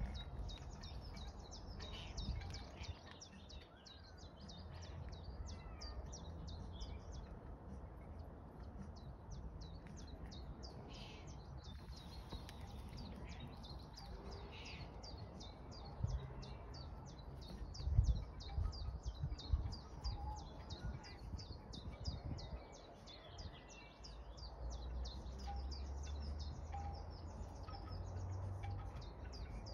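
Wild birds chirping and singing, a continuous run of quick high chirps, with a few low thumps around the middle.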